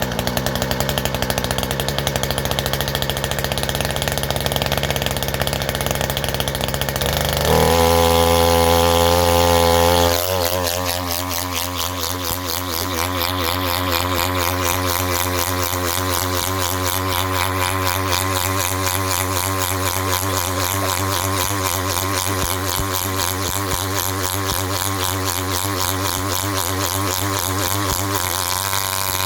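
Poulan Pro two-stroke chainsaw engine running hard at high revs, held on in a test rig. About seven seconds in it gets louder and shifts pitch; a couple of seconds later it eases back slightly and runs on with a wavering pitch.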